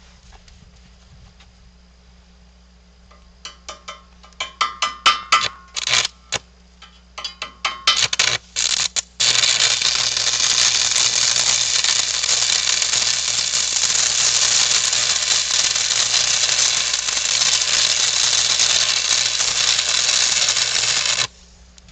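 Electric arc welder: a series of short tack welds, then a steady weld bead run for about twelve seconds that cuts off suddenly near the end.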